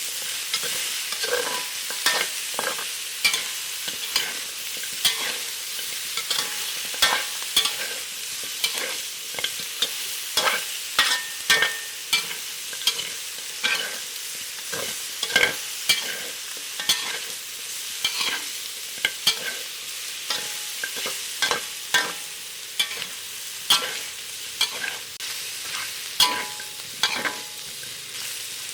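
Chicken and lemongrass stir-frying in a hot pan: a steady sizzle, with a spatula knocking and scraping against the pan about once or twice a second.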